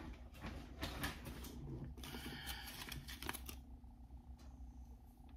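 Rustling and handling noise with a few light clicks as skeins of yarn are rummaged through and picked up, dying down after about three and a half seconds.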